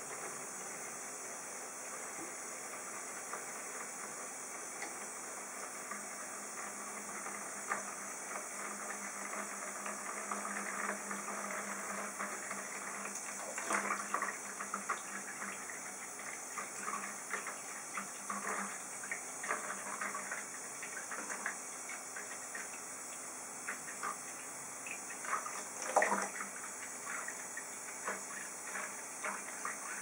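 Bathroom tap running steadily into a plastic tub of soapy water in a sink, with splashes as a pigeon is washed in it. The splashing is busiest through the middle, and the loudest splash comes near the end.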